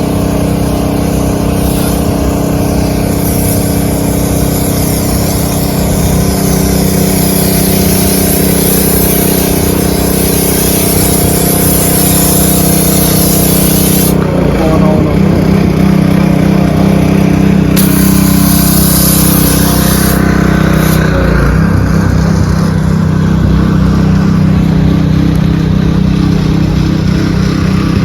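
Vacuum cleaner running steadily inside a car, its motor drone shifting in pitch a couple of times as the nozzle's suction changes.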